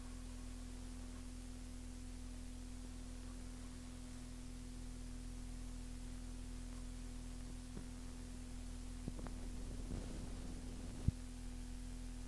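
Steady low electrical mains hum with faint hiss on the blank run-out after the last song of a cassette transfer. A few faint clicks come near the end, with one sharp click about eleven seconds in.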